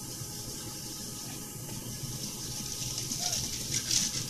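Water running steadily from a kitchen tap.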